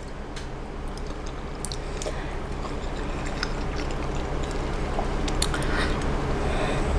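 A person chewing a bite of breakfast casserole, with scattered small clicks.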